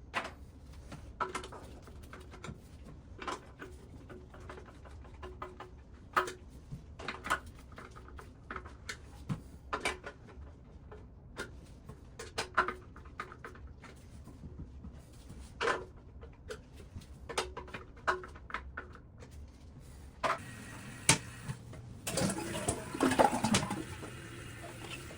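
Scattered sharp knocks and clicks, about one every second or two, over a low steady hum, then a louder rattling, scraping stretch near the end.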